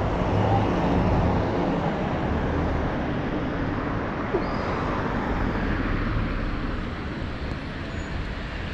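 Road traffic: cars and other vehicles driving past, a steady noise of engines and tyres.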